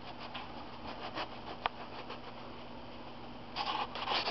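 Light scratching and rustling handling noises with a few soft clicks over a steady low hum, with a denser burst of rustling near the end.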